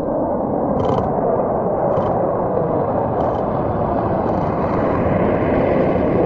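Jet engines of a flying-wing stealth bomber passing overhead: a steady, loud rushing noise that holds even throughout.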